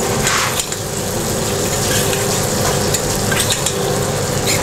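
Scallops sizzling steadily in foaming butter in a stainless steel frying pan while being basted with a spoon. This is the gentle butter-basting stage of cooking them through.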